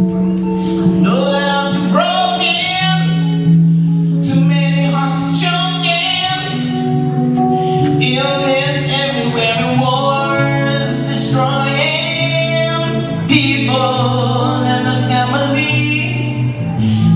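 Live song: singing over an electric bass, which holds long low notes beneath the sung melody.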